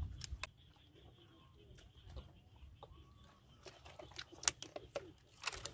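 Close eating sounds: chewing and lip smacks with scattered short clicks, the loudest about four and a half seconds in, over a faint steady high hum.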